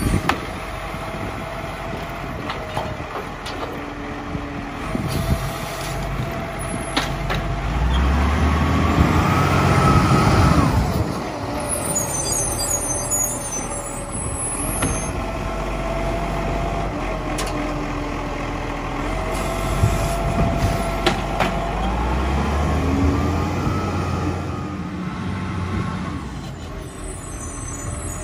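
Iveco side-loader garbage truck's diesel engine running, swelling and revving up and back down twice as the hydraulic arm lifts and empties wheelie bins, with a few sharp clicks and brief hisses of air as the truck stops and pulls away.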